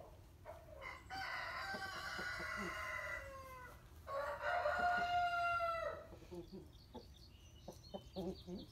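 A rooster crowing: two long, drawn-out calls that fall slightly in pitch, the first starting about a second in and the second following just after it ends.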